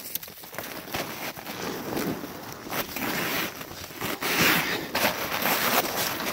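Hiking boots crunching and scraping on loose rock and gravel in irregular steps, as someone scrambles over rough, steep ground.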